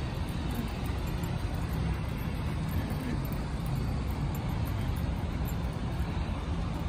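Congested street traffic: a queue of cars and a van creeping past at low speed, a steady low rumble of engines and tyres.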